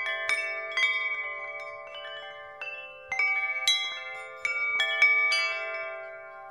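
Chimes struck in irregular clusters, clear bell-like notes overlapping and slowly dying away, like wind chimes.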